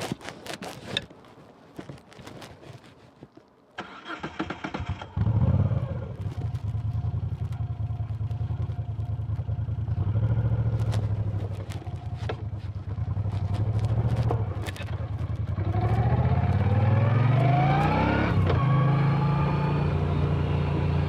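Moto Guzzi V9 Bobber's air-cooled V-twin on its stock exhaust, started: a few clicks and knocks, a brief crank of the starter about four seconds in, and the engine catching and idling, blipped a couple of times. Near the end it pulls away, its pitch rising, dropping at a gear change and rising again.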